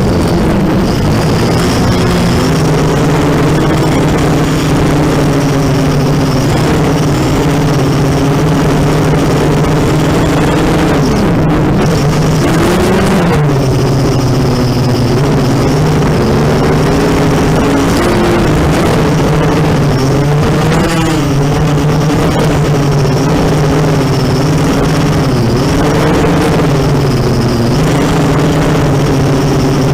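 Racing quadcopter's brushless motors and propellers whining steadily, the pitch rising and falling every few seconds as the throttle changes.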